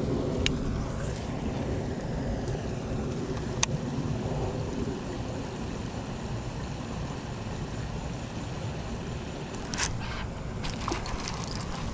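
Steady low rumbling outdoor noise, with a few light clicks scattered through it.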